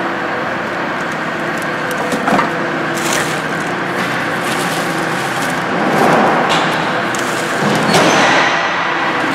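Flexible aluminium-foil duct crinkling and rustling as it is handled and dragged, with scattered clicks and knocks, loudest about three seconds in and again from about six to eight seconds in, over a steady hum.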